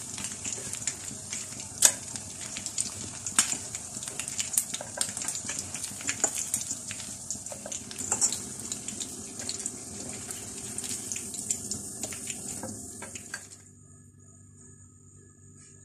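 Sesame-battered chicken strips deep-frying in hot oil over a medium flame: a steady sizzle full of sharp crackles and pops. It cuts off about thirteen seconds in, leaving faint music.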